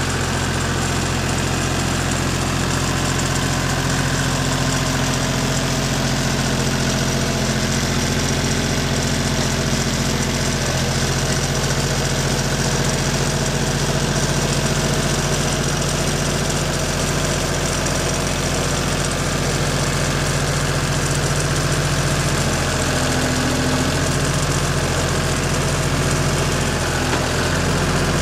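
Green compact tractor's engine running steadily at idle, its note shifting slightly near the end as the tractor moves up.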